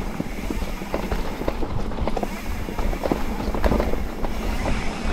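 Mountain bike riding over a rough trail: a steady rumble of tyres and wind, with frequent short knocks and rattles from the bike.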